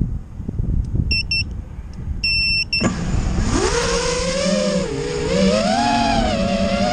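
A few short electronic beeps over low rumbling noise, then, about three seconds in, the brushless motors of an FPV quadcopter spin up: a whine that rises quickly and then wavers up and down in pitch with the throttle as the drone lifts off.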